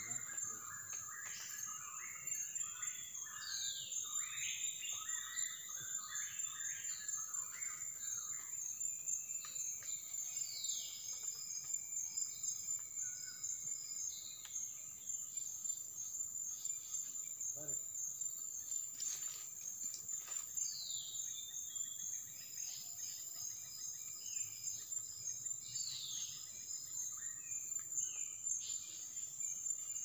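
Tropical forest dawn chorus: a steady high-pitched insect drone throughout, with birds calling over it. Busy chattering calls fill the first several seconds, and a falling whistle sounds four times, several seconds apart.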